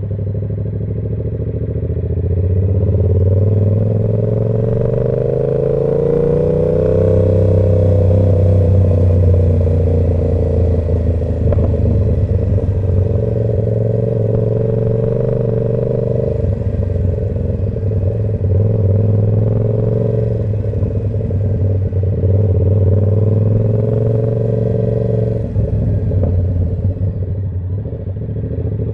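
Yamaha R7 parallel-twin engine running through an SC-Project aftermarket exhaust while riding. The pitch rises over the first several seconds as the bike accelerates, then holds fairly steady with a few brief dips where the throttle eases.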